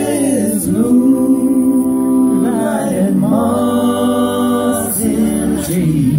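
A man and a woman singing together in harmony into microphones, holding long notes that change every second or two.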